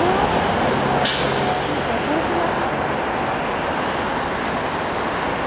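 Steady road traffic with the low hum of a bus engine; about a second in, a sharp hiss of a bus's air brakes lasting about a second.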